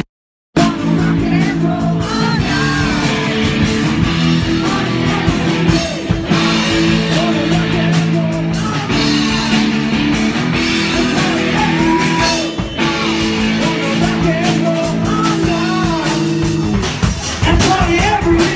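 Live rock band playing: drums, electric guitar and a singing voice over held chords. The sound drops out completely for about half a second at the very start.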